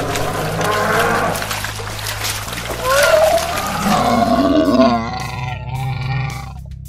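Dinosaur roar sound effects from an animated cartoon. The calls glide up and down in pitch, are loudest from about three to five seconds in, and play over a low, steady music bed. They fade shortly before the end.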